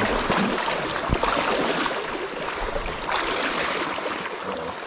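Water of a shallow trout river running steadily over its bed, a continuous rushing that swells and eases a few times.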